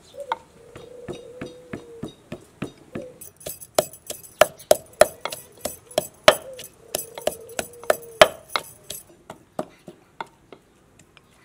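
Wooden pestle pounding chopped green chillies and aromatics into a paste in a tall wooden mortar: a steady run of knocks, about three a second, loudest in the middle and thinning out near the end.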